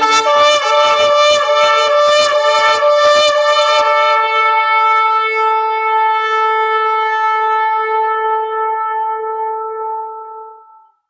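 A shofar (ram's horn) blowing one long blast: it steps up to a higher note right away, pulses rapidly for about four seconds, then holds the note steadily and fades out near the end.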